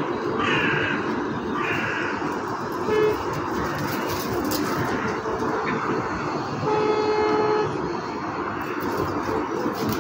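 Steady city traffic noise, with a car horn sounding briefly about three seconds in and again for about a second near seven seconds.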